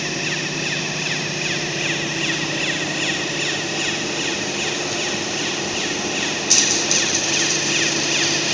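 Factory floor ambience: a steady machine hum under a fast repeating high chirp, with a hiss coming in about three-quarters of the way through.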